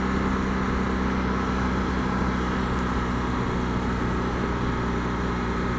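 BMW R1200 GS Adventure's boxer-twin engine running at a steady cruising speed, its even drone mixed with wind and road noise.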